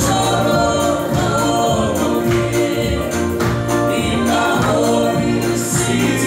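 Choir-style group singing in harmony over music with steady bass notes, in a gospel style.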